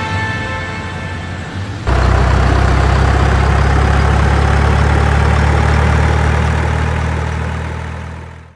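Background music, cut off abruptly about two seconds in by a heavy vehicle engine idling steadily, which fades out at the end.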